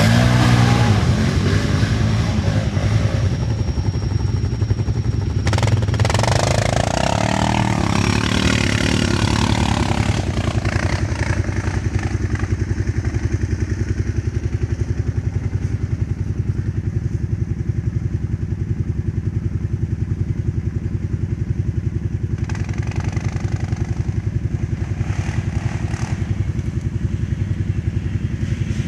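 ATV engine running, revved up and back down about six to ten seconds in, then settling into a steady idle.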